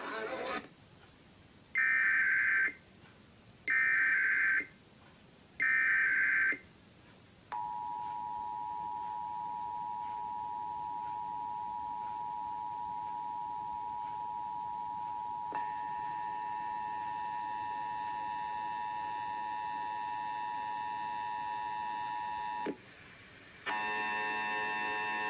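Emergency Alert System test: three loud screeching bursts of the digital data header, about a second each and two seconds apart, then the steady two-note attention signal, which gains a harsher upper layer about halfway through and cuts off, followed after a brief gap by a buzzier multi-overtone tone near the end.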